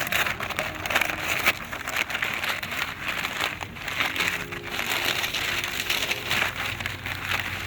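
Continuous rustling and crinkling of wrapping material being handled.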